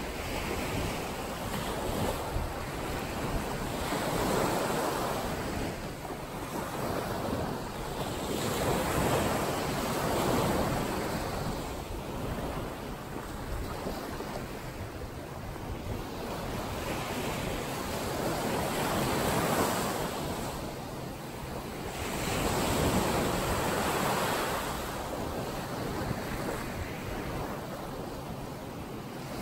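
Ocean waves washing in, a steady rush that swells and falls back every few seconds, with wind rumbling on the microphone.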